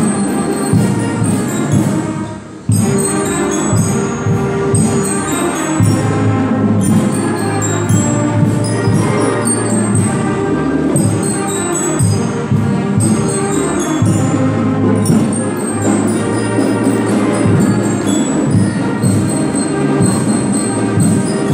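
Student concert band playing a piece with clarinets, saxophones, trombone and bass drum. The music drops away briefly about two and a half seconds in, then carries on.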